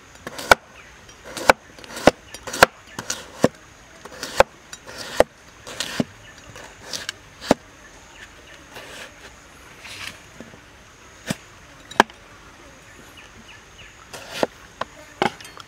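A cleaver slicing through a cucumber and knocking on a wooden cutting board: sharp, irregular chops about one or two a second, a few of them in quick pairs.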